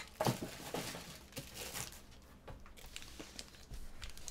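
Foil trading-card pack wrappers crinkling as the packs are picked up and handled, in a string of irregular short rustles.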